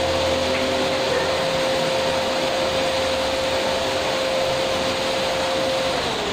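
Canister vacuum cleaner running steadily, a constant rushing noise with a steady motor whine that sags slightly lower in pitch near the end.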